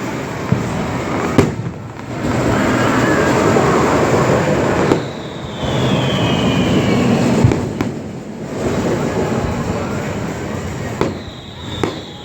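Fireworks display: sharp single bangs a few seconds apart, with long stretches of dense crackling and rumbling from bursting shells. Twice a thin whistle glides downward in pitch, about halfway through and again near the end.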